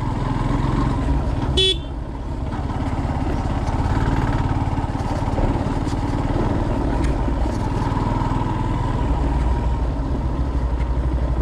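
Yamaha FZS single-cylinder motorcycle engine running steadily at low speed while the bike is ridden over a rough dirt track. A short high beep sounds once, about two seconds in.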